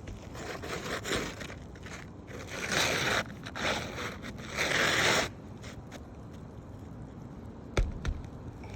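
Rough scraping on asphalt roof shingles in three bursts, the last one the longest, followed by two sharp knocks near the end.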